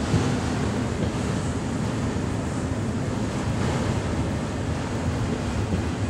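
Autorack freight cars rolling past on the rails: a steady rumble of wheels on track.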